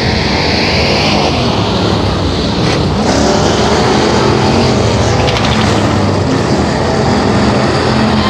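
Several dirt-track factory stock cars racing, their engines loud and continuous, with a rise in pitch about three seconds in as the cars accelerate.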